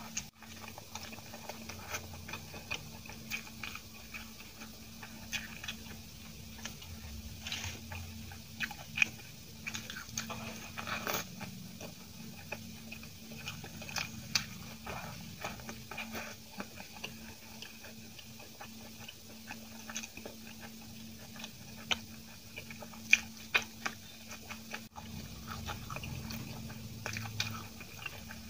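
Chewing and mouth sounds of a person eating soft steamed idli with tomato chutney, with many short sharp clicks scattered throughout. A steady low hum runs underneath.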